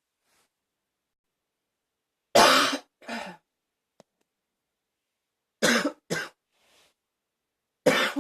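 A person's barking cough, coming in bouts: a pair of coughs, another pair a few seconds later, and a single cough at the end.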